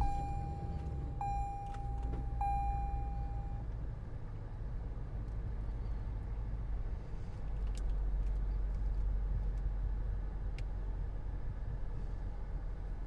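A car's in-cabin warning chime sounds three times, each a steady tone just over a second long, over the low, steady rumble of the car running.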